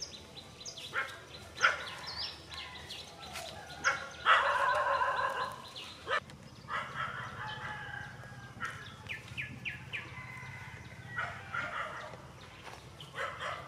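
A rooster crows once, one long call about four seconds in, the loudest sound here, with small birds chirping around it.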